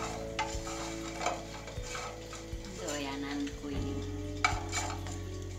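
Chestnuts being stirred and turned in a non-stick frying pan, with scattered light knocks and clinks of the utensil and a faint sizzle. The sharpest clink comes about four and a half seconds in.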